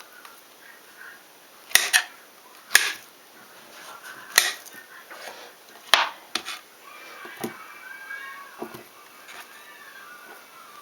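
Kitchen items being handled during food preparation: several sharp knocks and clicks, about a second or more apart, the loudest four in the first six seconds.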